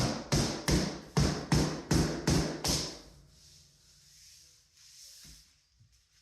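A quick run of sharp knocks, about three a second, that stops about three seconds in, followed by faint room sound.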